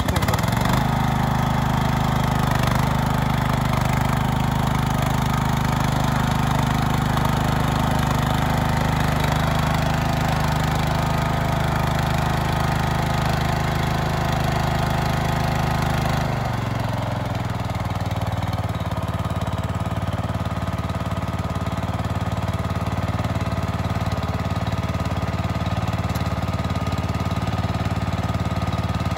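Husqvarna zero-turn mower's engine running steadily; its note drops and settles lower about halfway through.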